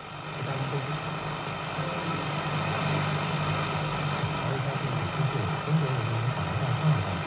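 Grundig Satellit 650 radio's loudspeaker on the shortwave band: steady static hiss over a low, wavering hum, with a faint signal fading in and out.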